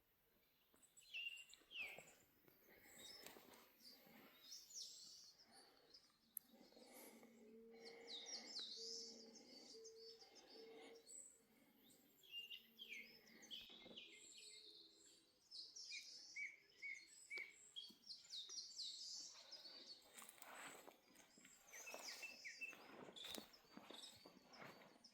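Faint birdsong: several birds chirping and calling in short, quick phrases, with scattered soft knocks.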